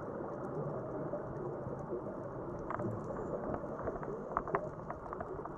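Underwater ambience: a steady muffled rush of noise, with a scatter of sharp irregular clicks starting a little before halfway.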